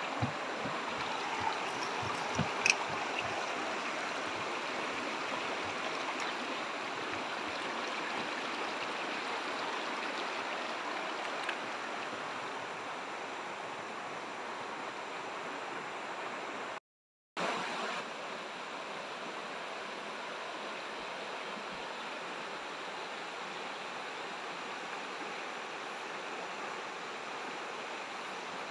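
Shallow river running over rocks: a steady rush of water, broken by a moment of silence about two-thirds of the way through.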